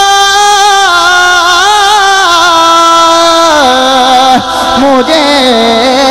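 Male voice singing a naat into a microphone, drawing out one long note without words. The note is held steady at first, then breaks into wavering ornamental turns, and its pitch steps down lower in stages through the second half.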